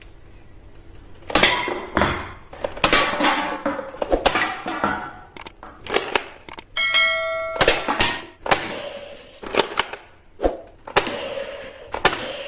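Plastic toy guns being handled: a series of clicks, clacks and knocks, with a short ringing chime about seven seconds in.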